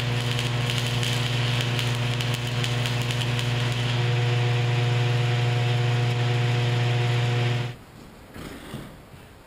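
Stick-welding arc on a Century welder burning a 7018 rod, crackling and hissing steadily over a strong low hum. Both cut off abruptly about three-quarters of the way through, leaving quiet shop room tone with a faint bump.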